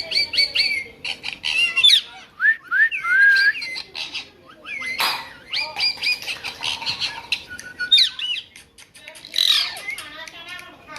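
Pet parrot squawking and chirping: a busy run of short calls with quick rising and falling whistles, broken by a couple of harsh screeches about five and nine seconds in.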